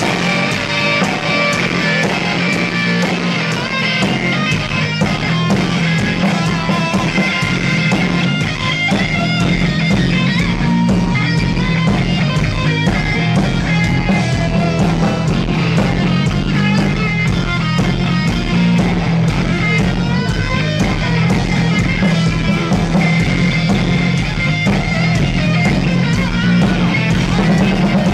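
Heavy metal band playing live: distorted electric guitar over bass guitar and drum kit.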